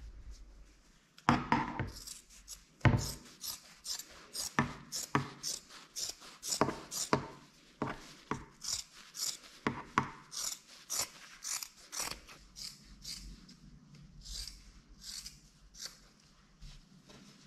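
Scissors cutting through black fabric in a long series of sharp snips, about two a second, with a couple of louder knocks in the first few seconds. The snips thin out near the end.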